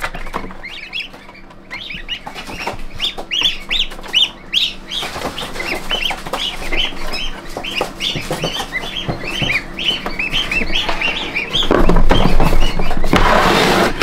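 Newly hatched goslings peeping: many short, high cheeps in quick succession. Near the end a brief burst of rustling handling noise comes over them.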